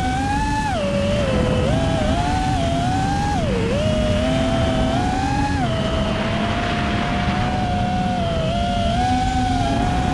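FPV racing quadcopter's motors and propellers buzzing in flight, heard from its onboard camera. The pitch keeps rising and falling as the throttle changes, with a sharp dip a few seconds in. A steady low rush of noise runs beneath it.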